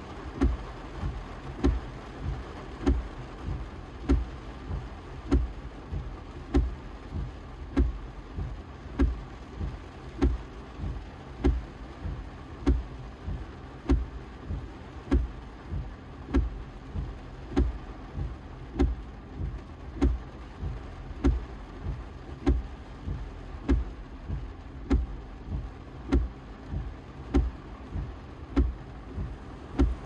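Windshield wipers sweeping continuously, heard from inside the car: a low thump at each end of the stroke, alternating louder and softer, about one full back-and-forth every second and a quarter. Under them is the steady hiss of heavy rain on the windshield.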